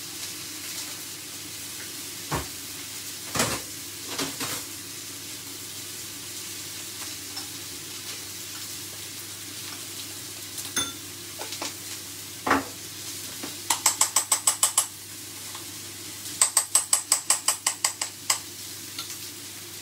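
Steak sizzling steadily in a hot frying pan, with a few single knocks and clinks. Twice in the second half comes a run of fast clinking as a spoon stirs honey and mustard together in a ceramic bowl.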